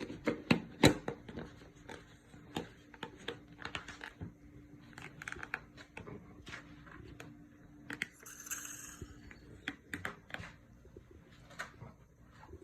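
Scattered clicks, knocks and light rustles of kitchen things and packaging being handled, several sharper knocks in the first second and a brief rustle near two-thirds of the way through, over a steady low hum.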